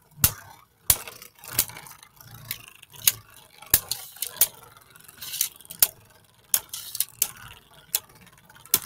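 Spinning Beyblade Burst tops clashing in a plastic stadium: sharp, irregular clacks every half-second to second, with a faint scraping whir between hits.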